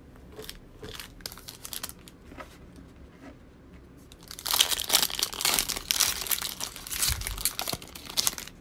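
Foil wrapper of a Panini Select football card pack crinkling loudly as it is torn open by hand, starting about four seconds in after a few light rustles and taps.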